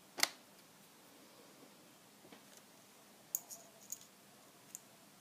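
Lock pick and tension wrench working in a brass padlock's keyway: one sharp metallic click about a quarter second in, then a few light, high ticks later on.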